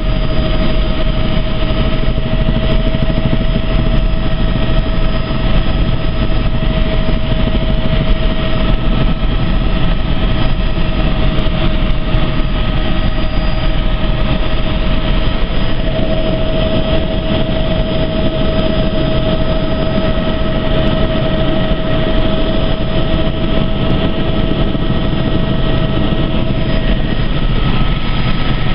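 Helicopter noise heard from inside the cabin in flight: a loud, steady engine and rotor drone with a constant whine over it.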